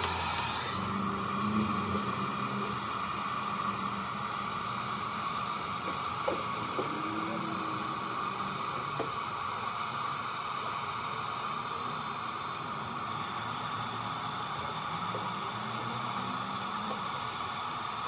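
Handheld hair dryer switched on and running steadily, blowing hot air over vinyl tint film on a taillight to smooth out wrinkles and seal it down.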